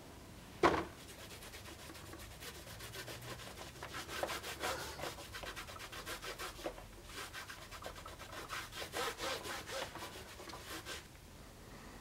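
A cloth rubbed briskly back and forth along a leather-covered sword scabbard, polishing it, in quick rhythmic strokes that come in several bursts. There is one sharp knock just before the rubbing starts.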